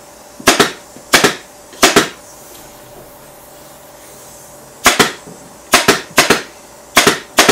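Pneumatic upholstery staple gun firing staples through dust-cover fabric into a chair seat, one shot at a time. Each shot is a sharp click: three in quick succession, a pause of about three seconds, then about five more.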